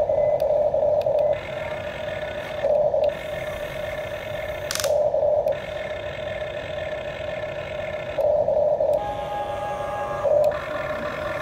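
Huina toy RC excavator's small electric gear motors whining as the boom, arm and bucket move, the whine swelling in several short bursts over a steadier lower hum. A single sharp click about five seconds in.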